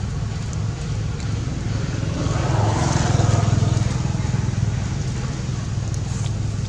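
Steady low engine rumble of road traffic, swelling about two to four seconds in as a vehicle passes close.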